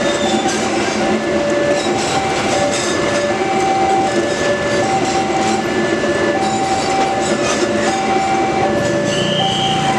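Railway level-crossing alarm sounding its two-tone electronic chime, alternating high and low about once a second, over the continuous rumble of a passenger train rolling through the crossing. A brief high squeal comes near the end.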